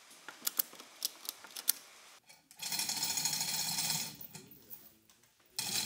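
Orange ratchet straps being tightened around a mosaic panel: a run of sharp clicks in the first two seconds, then rapid rattling as the ratchet is cranked, about a second and a half long, starting again near the end.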